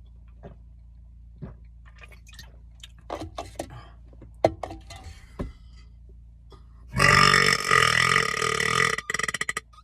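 A man's long, loud burp from a gulped energy drink, starting about seven seconds in and breaking into a rapid rattle as it ends. Before it come scattered small clicks and knocks.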